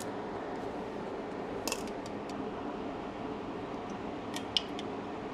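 A few light metallic clicks and ticks of hand tools and small parts being handled while the oil filter cover is unbolted, over a steady background hum. One click about a second and a half in, and a sharper cluster near the end.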